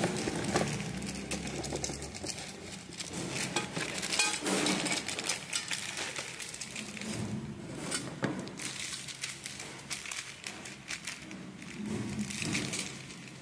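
Plastic wrapping crinkling and a cardboard box rustling as a non-stick dosa tawa is slid out of its packaging, with many scattered sharp clicks and crackles.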